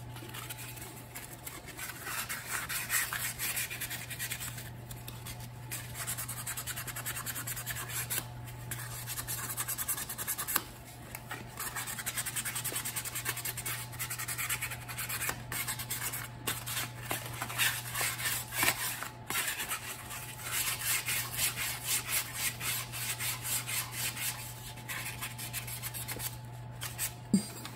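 A rag scrubbing dirt off an e-bike's bottom bracket spindle: rapid rubbing and scratching strokes with short pauses.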